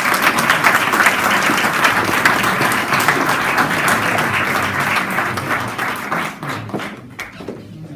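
Audience applauding in a hall, many hands clapping steadily, then dying away near the end.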